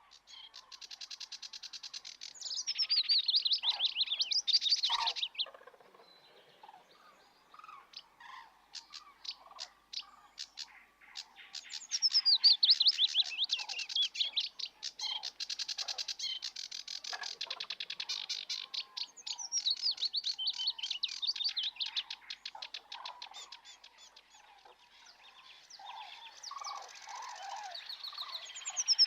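Birds singing: bursts of rapid trilled notes a couple of seconds long, many falling in pitch, repeated with short pauses between.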